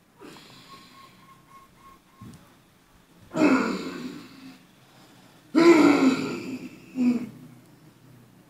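A man hawking and clearing his throat loudly: two long, rasping outbursts a couple of seconds apart, then a shorter third.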